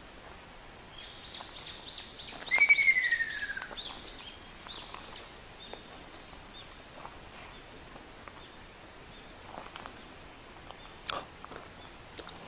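Ruddy kingfisher giving one rolling trill that falls in pitch, lasting about a second and a half, with another bird's quick high notes repeating around it. A sharp click near the end.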